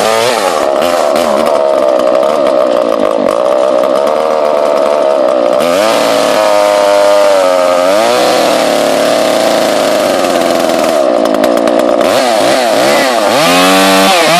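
Husqvarna 142 two-stroke chainsaw engine running just after starting, still partly choked, its speed dipping and rising again several times.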